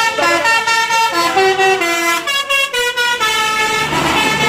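Indonesian telolet-style "basuri" musical bus horn playing a tune of held notes that step from pitch to pitch, several tones at once. A rumbling noise builds under it near the end.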